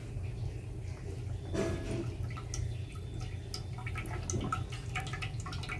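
Cooking oil poured in a thin stream from a plastic bottle into a kadhai, splashing into the pool of oil in the pan, over a steady low hum.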